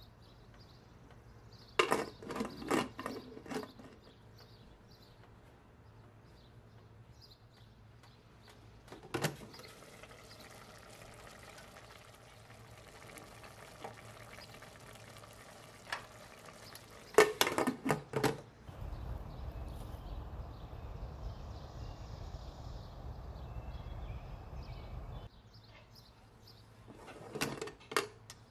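Kabsa broth and rice bubbling in a stainless steel pressure cooker pot, with a louder steady stretch of boiling for about six seconds past the middle. Short bursts of metal clatter from the cookware come four times, the last as the lid goes on near the end.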